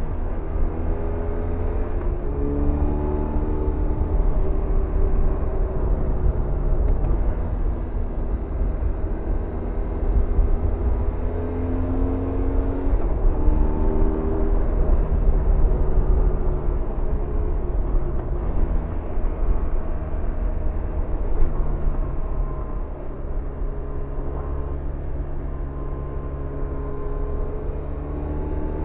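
BMW R1100RT's 1085 cc boxer twin running as the motorcycle cruises, its pitch rising and falling with the throttle, over a steady rush of wind noise. Near the end the engine settles a little lower and steadier.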